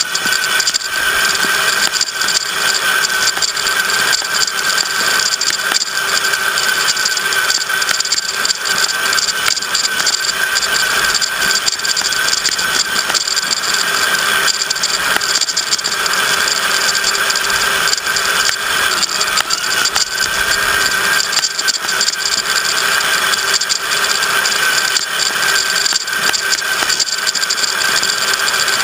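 RC crawler truck's motor and drivetrain running steadily as it drives over a rough dirt trail, a constant high whine with continuous rattling of the chassis and onboard camera gear.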